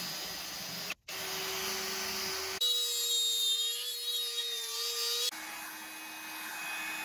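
Cordless drill spinning a small bit in the bleed-screw hole of a Brembo brake caliper. It breaks off briefly. Then a high-speed rotary tool with a carbide cutter grinds into the hardened broken extractor tip with a high whine for about three seconds, the loudest part. Then an electric heat gun blows steadily to warm the caliper.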